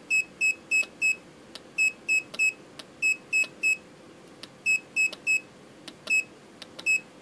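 Short, high electronic beeps from an Arduino-based box joint jig controller, about three a second in runs of three or four with short gaps, each beep marking a step of the kerf setting while a keypad button is held down. Faint clicks fall between the runs.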